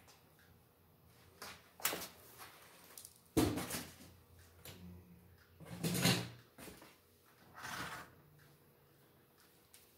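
Cardboard packaging and parts being handled: four separate bursts of rustling and knocking, the loudest a dull thump about a third of the way in.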